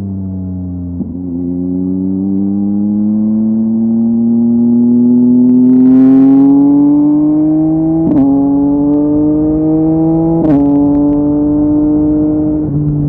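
2023 Yamaha MT-09's 890 cc inline-three through a LeoVince LV Race exhaust, pulling under acceleration with its pitch rising steadily. Two quickshifter upshifts about 8 and 10.5 seconds in are each marked by a sharp crack and a brief step in pitch.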